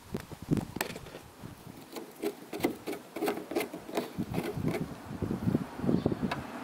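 A car roof antenna mast being unscrewed by hand from its rubber base: an uneven run of short scrapes, creaks and clicks as the threads and rubber twist.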